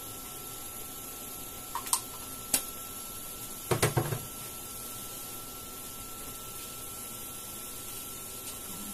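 Steady kitchen hum and hiss with a faint constant tone, broken by two sharp clinks about two seconds in and a louder cluster of knocks and clinks about four seconds in, like cookware or a utensil being handled.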